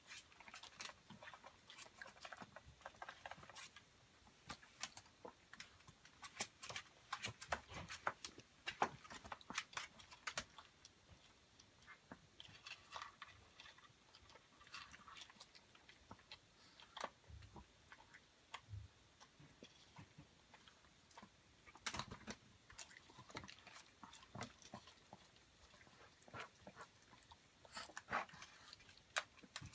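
Chihuahua chewing its food: faint, irregular clicks and crunches of eating.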